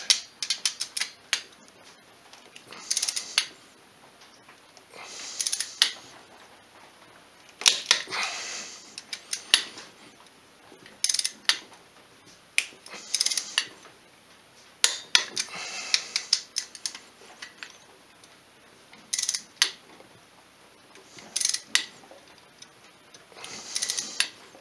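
Socket wrench ratcheting in about ten short bursts of rapid clicks, one every two to three seconds, as the Polaris 500's cylinder head bolts are tightened to 51 foot-pounds in the torque sequence.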